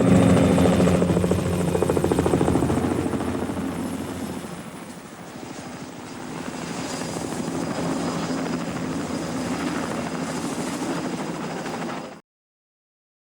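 Helicopter flying, its rotor blades making a rapid steady chop over a steady engine tone. It grows quieter about five seconds in, builds again, and cuts off abruptly near the end.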